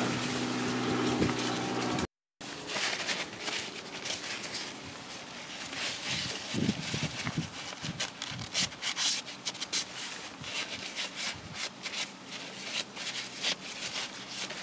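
Paper towel rubbing and crinkling on the plastic diesel fuel filter housing as spilled diesel is wiped off, in quick irregular scrapes. A steady hum comes first and breaks off about two seconds in.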